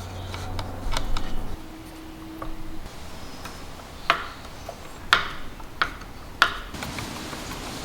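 Four sharp clicks of small hard parts knocking together, about a second apart, after a brief low hum.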